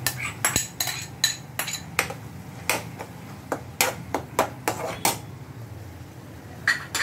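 A metal spoon knocking and scraping against a cooking pan while chopped onion, tomato and capsicum are stirred, in quick irregular clinks that thin out after about five seconds.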